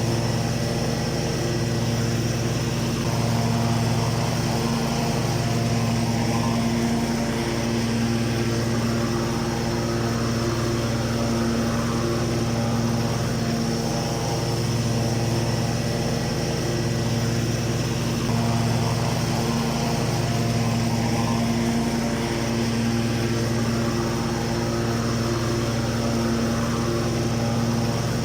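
Riding lawn mower engine running steadily at a constant speed, an even low hum with no change in pitch or level.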